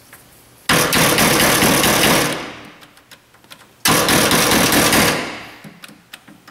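Two loud bursts of rapid knocking at a power window motor, each about a second and a half long, the first about a second in and the second near the middle. The motor is being worked on to free it, and it stays stuck, the sign of a failed motor.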